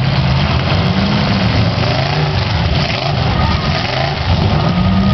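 Several demolition-derby car engines running loud and revving, their pitch rising and falling over and over as the cars accelerate and back off.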